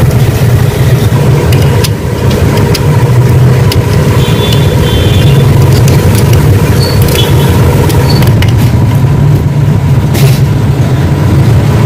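Loud, steady low machine hum with a faint constant whine above it, and a few light clicks scattered through.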